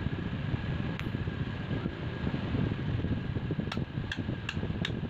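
A fan running steadily, a low rumbling drone with a thin steady whine over it. About three-quarters of the way in, light metallic taps begin, about two or three a second.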